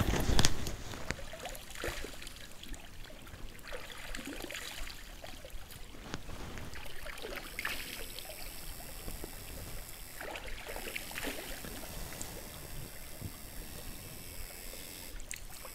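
Soft sloshing and splashing of stream water as a person wades in a shallow stream and dips a hand into it, a few gentle splashes spread through the stretch.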